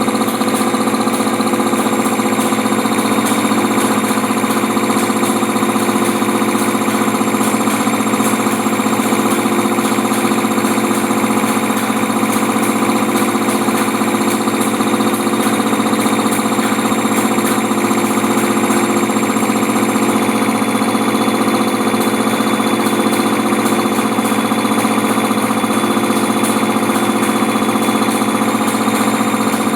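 Air compressor running steadily under power, a loud continuous hum with no break.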